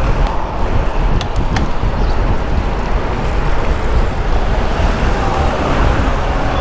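Wind rushing over a helmet-mounted GoPro's microphone on a road bike at speed, mixed with city traffic noise. Two sharp clicks come a little over a second in.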